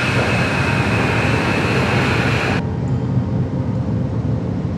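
A loud, steady rushing roar that cuts off abruptly a little past halfway, leaving a low rumbling hum.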